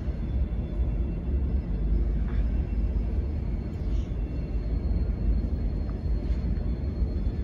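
Boeing 777-300 jet engines at idle as the airliner taxis in, heard as a deep, steady rumble.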